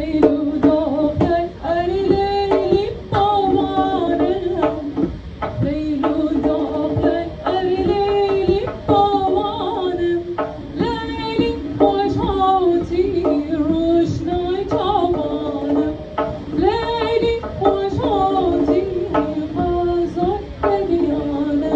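Live Persian traditional music: a kamancheh (bowed spike fiddle) plays a melody of sliding notes with vibrato, over frequent hand-drum strokes.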